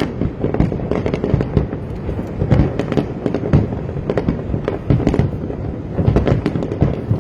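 Fireworks display: a dense, irregular run of bangs and crackling bursts, several a second, over a continuous low rumble.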